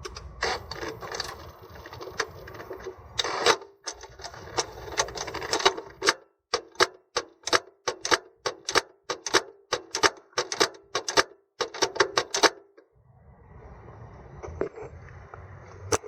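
Gear-shift and clutch actuators of a Toyota MMT multimode gearbox clicking over and over, about three clicks a second, then stopping about three-quarters of the way through. The gearbox computer is running its learning routine, trying again and again to engage a gear with no luck: the learning fails and the car is left with no neutral.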